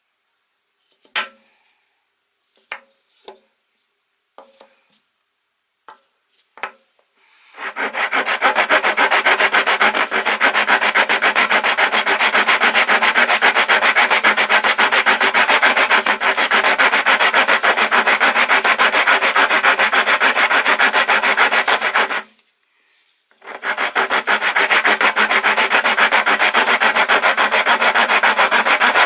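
Coarse half-round steel wood rasp (a Daiso 100-yen woodworking rasp) filing wood: a loud, continuous scraping that runs about fourteen seconds, stops for about a second, then starts again. Before it come a few separate light knocks.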